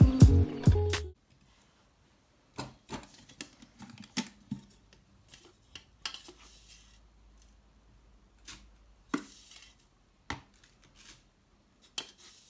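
Music that stops about a second in, followed by scattered light clicks and taps, small objects being handled, a few every second or two.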